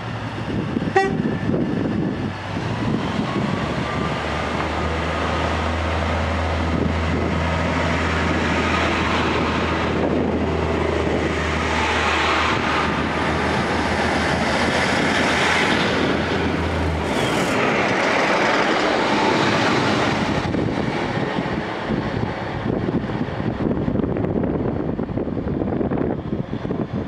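Northern Class 142 Pacer diesel railbus running along the platform, with the low rumble of its underfloor diesel engine and steady rail and wheel noise. A short horn toot comes about a second in, and the engine hum drops away after about 17 seconds, leaving the rail noise.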